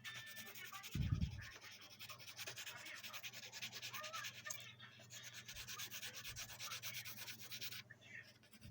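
Fast, even rubbing or scratching strokes, with a dull thump about a second in; the rubbing stops shortly before the end.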